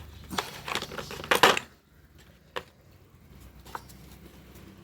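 Metal hand tools clinking and rattling as they are handled, a burst of clatter in the first second and a half, then two single light clicks.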